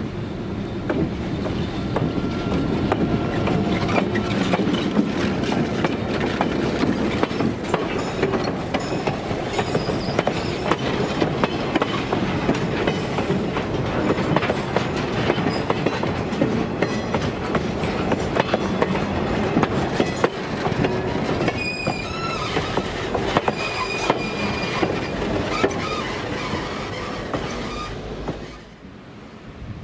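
Diesel locomotive passing close by, followed by a string of passenger cars rolling past with a steady clatter of wheel clicks over the rail joints. In the latter part the wheel flanges squeal in a few short high tones. The sound falls away suddenly just before the end as the last car goes by.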